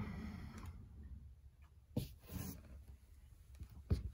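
A few light clicks and a short scuff of handling noise over a low background hum, with one sharp knock near the end.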